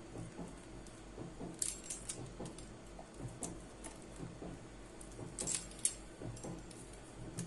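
Metal pizza-cutter wheel rolling through seed-topped puff pastry on baking paper: faint, irregular scratching and crackling, with a few sharper clicks.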